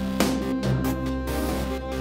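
Instrumental background music with sustained notes and a beat.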